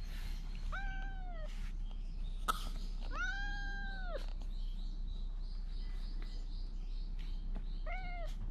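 Stray cat meowing loudly three times: a short meow about a second in, a longer, louder one around three seconds in, and a short one near the end. A single sharp click falls between the first two meows.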